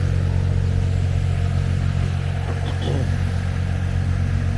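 Steady low drone of heavy diesel engines running at a concrete slab pour, from the concrete pump and mixer trucks, with a faint voice in the middle.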